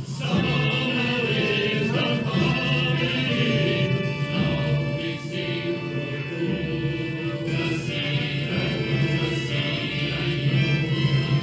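Choral music: a group of voices singing together.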